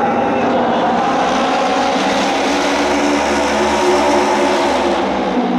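Engines of auto race motorcycles running at high revs as the pack races around the oval, a steady blend of several engines with a deeper low hum from about one second in until near the end.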